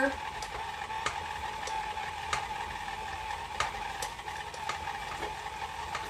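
Electric stand mixer running on low speed, its paddle mixing muffin batter as liquid is drizzled in: a steady motor whine with scattered light clicks.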